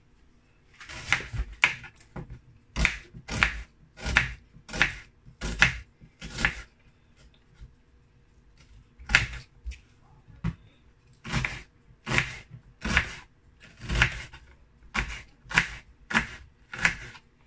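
Kitchen knife chopping an onion on a bamboo cutting board: a run of sharp knocks of the blade striking the wood, about two a second, with a pause of a couple of seconds about halfway.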